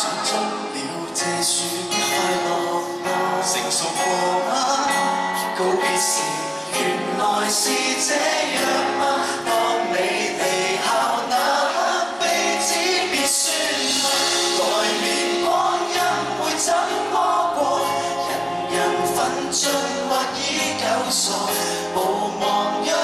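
Live concert music: a song sung over full band accompaniment.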